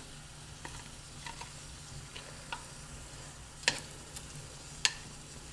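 A wooden spoon knocking and scraping against a stainless steel skillet as floured, browned cube steaks are set back in and pushed into place, a few sharp knocks with two louder ones near the end. A faint sizzle carries on underneath from the still-hot pan.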